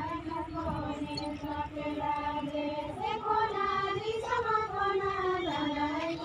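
Singing: a slow, high-pitched melody of long held notes that slide from one pitch to the next.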